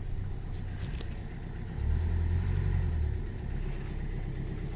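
Nanni marine diesel engine running just after starting, a steady low rumble that grows louder for about a second and a half in the middle before settling back to an even idle.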